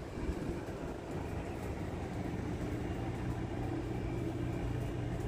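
Steady low mechanical hum of a room appliance running, with two constant low tones under an even background noise.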